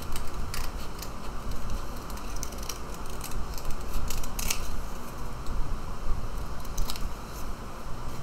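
Scissors snipping through a paper plate: a series of short, irregularly spaced cuts as a shape is cut out, one louder snip about halfway through.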